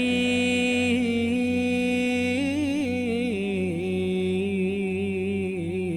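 A single voice chanting long, held notes with wavering, ornamented turns over a steady low drone.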